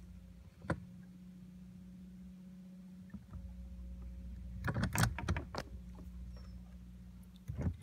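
Steady low hum of a small boat's motor with a faint whine over it. A single click comes about a second in, a quick cluster of knocks and clicks comes about five seconds in, and one more knock comes just before the end.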